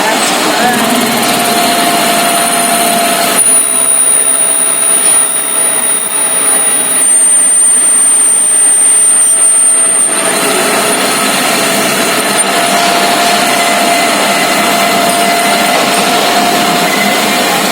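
Metal-turning lathe running, with a steady high-pitched whine from about three to ten seconds in that shifts pitch partway through.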